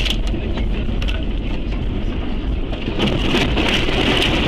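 A car running off the road into deep roadside snow: a dense rush and crackle of snow sprayed against the body and windscreen over the low rumble of the car, growing heavier about three seconds in.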